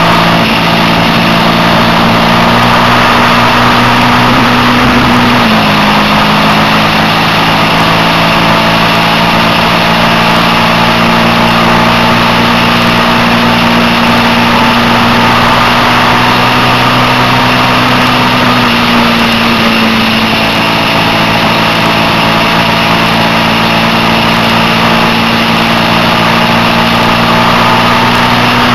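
Suzuki SV650's V-twin engine running at steady cruising revs, heard on board at speed over a constant rush of wind noise; the engine note dips slightly about five seconds in and again around twenty seconds.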